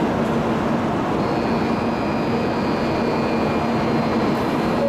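Steady running noise of an N700A Shinkansen train standing at the platform. A faint high whine joins about a second in.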